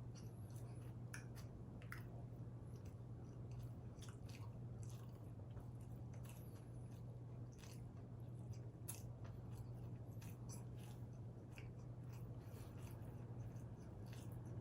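A person chewing and biting into pizza, with scattered wet mouth clicks and smacks over a steady low hum.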